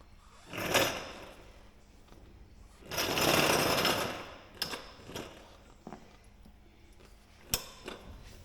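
Hands-on work on a light aircraft's landing gear with hand tools and parts: two short bursts of mechanical rattling noise, the second louder and about a second long, then a few sharp knocks.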